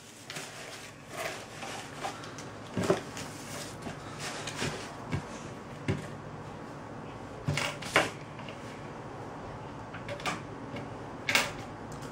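Cardboard box and shredded paper filler being rummaged through by hand, with scattered sharp knocks and clicks as coins are picked out and set down on a wooden tabletop.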